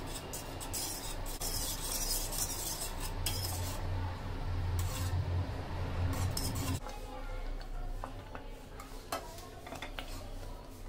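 Wire whisk stirring and scraping a thickening coconut milk and corn flour mixture in a nonstick saucepan, in quick irregular strokes against the pan. A low steady hum underneath drops away about two-thirds of the way through.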